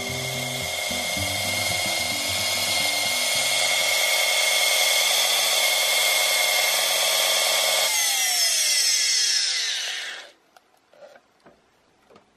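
Makita 3620 router's electric motor running flat out with a steady high whine that sounds a bit rough. About eight seconds in it winds down, the whine falling in pitch until it stops. The motor has overheated to the point of smoking, its winding varnish burning.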